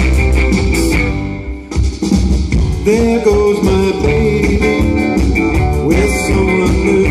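Live band of electric guitars, electric bass, drums and keyboard playing through a PA system. The band drops out briefly about a second in, then comes back in with a melody line over the beat.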